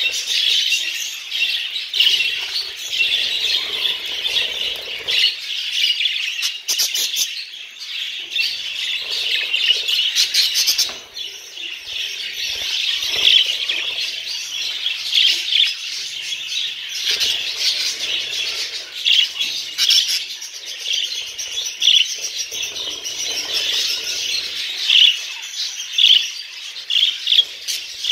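A flock of budgerigars chattering and warbling continuously, a dense mix of chirps and squawks with no pauses.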